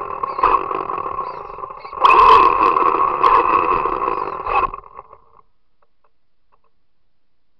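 Small RC car's motor and drivetrain whining as the car drives, growing louder about two seconds in and cutting off just before five seconds in as the car stops.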